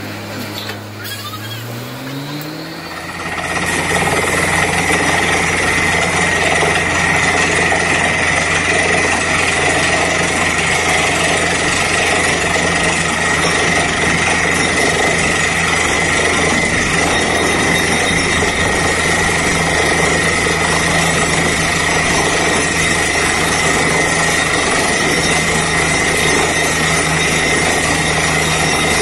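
Truck-mounted borewell drilling rig: its engine revs up over the first few seconds, then about three seconds in the compressed air and down-the-hole hammer kick in, a loud, steady noise of drilling with a high whistle running through it.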